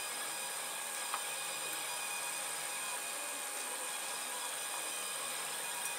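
Protomaker Sprint FDM 3D printer running as it prints its first-layer skirt: a steady whir of its stepper motors and cooling fans.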